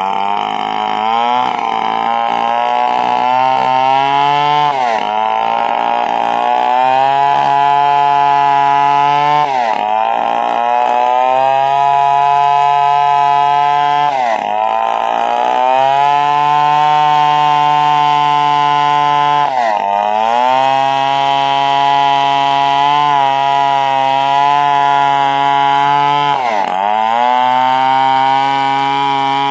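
Stihl 070 two-stroke chainsaw running hard while cutting wood, its engine pitch dipping sharply and recovering five times, about every five seconds.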